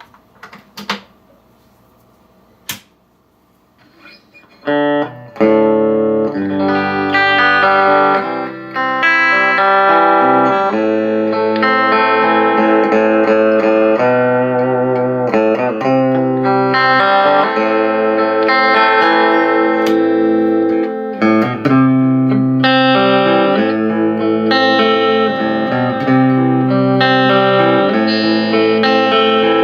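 Electric guitar played through an H&K amplifier for a sound check. After a few seconds of faint amp hum and a couple of clicks, it rings out in sustained chords and single notes.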